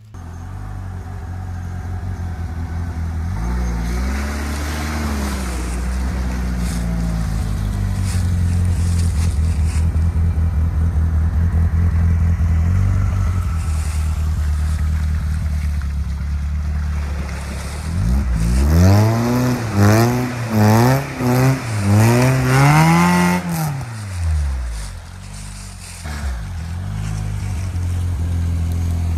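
Off-road car engine running steadily under load, then revved hard about five times in quick succession, its pitch climbing and dropping each time, before settling back to a steady run.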